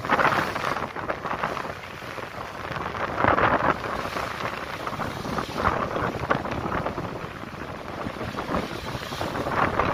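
Strong wind buffeting the microphone and rough sea splashing against a small boat. The wash surges several times, roughly every two to three seconds.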